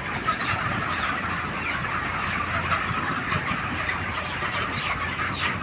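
A flock of 36-day-old broiler chickens making a steady chatter of many overlapping cheeps and clucks.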